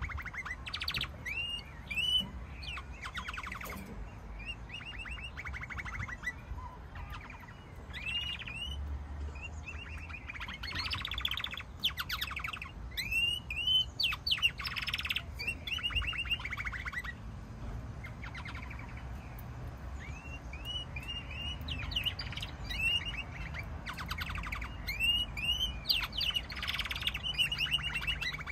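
Domestic canaries singing: long phrases of fast trills and repeated rising chirps, broken by short pauses.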